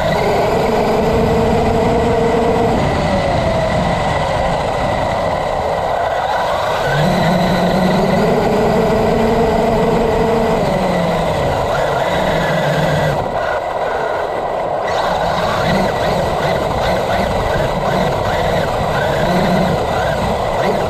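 Traxxas UDR radio-controlled desert truck driving over grass, heard from a camera mounted on the truck: its brushless electric motor whines, coming and going and shifting in pitch with the throttle, over a steady loud rush of wind and tyre noise.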